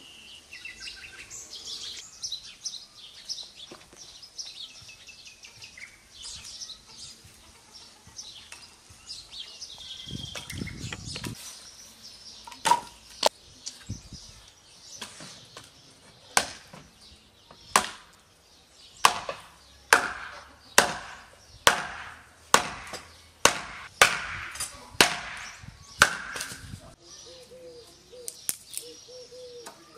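Birds chirping, then an axe chopping firewood on a log stump: more than a dozen sharp chops, about one a second, through the second half.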